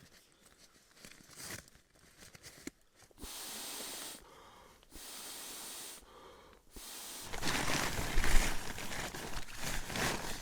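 Rustling of nylon sleeping gear being handled, preceded by two steady hissing stretches of about a second and a half each and a few small clicks. The rustling grows louder and busier about seven seconds in.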